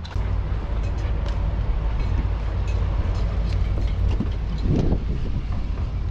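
Road and engine noise heard from inside a moving car: a steady low rumble with a faint rattle on top, starting abruptly right at the beginning.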